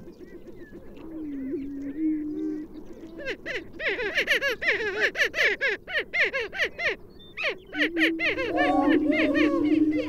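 Greater prairie-chickens calling on a lek. A low, steady booming is overlaid by a chorus of quick, rising-and-falling cackles and whoops, which grows much denser from about three seconds in. The booming returns strongly near the end.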